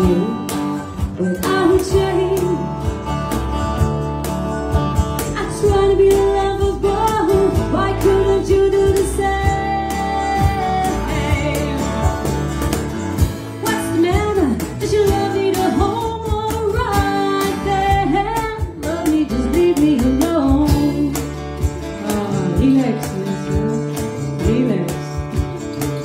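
Live band playing: a woman singing over electric bass, keyboard, drums and a plucked mandolin.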